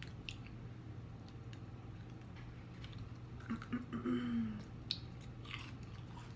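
Close-up chewing and mouth sounds of people eating fast-food french fries and onion rings, with small scattered crunches and clicks. A short hummed "mm" comes about four seconds in.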